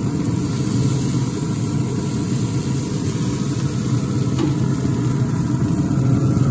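Rec Tec pellet grill's fan running, a steady low hum with a whooshing rush over it.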